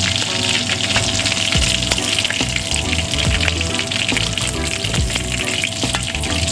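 Chicken pieces frying in hot corn oil: a steady, dense crackling sizzle as they finish browning to crispy.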